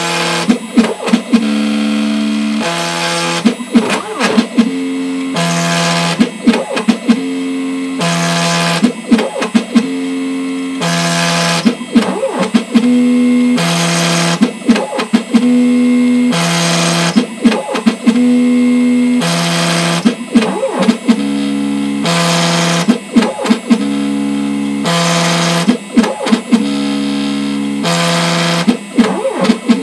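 ShopBot Desktop D2418 CNC router milling ABS with a 3-flute end mill at 6000 RPM. The machine's motors give steady tones that jump between a few pitches as the cutter changes direction along the toolpath, with short bursts of cutting noise at each change, in a pattern repeating every couple of seconds.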